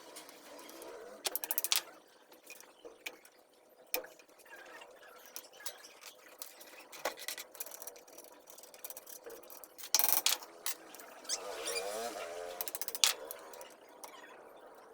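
Hand work on an old electric motor: scattered clicks and knocks of metal parts and tools, with short runs of rapid clicking about a second in, around ten seconds and again near the end.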